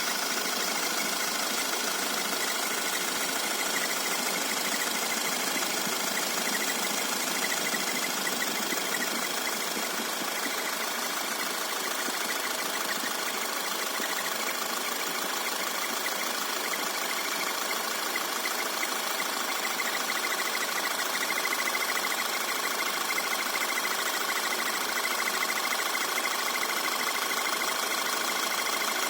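2010 Audi A5's 2.0 TFSI four-cylinder (CDNC) engine running steadily, with a fast fluttering whine high in pitch over the engine note. The owner puts this noise down to the PCV valve / oil separator; new belt tensioner, idler and alternator pulleys did not cure it.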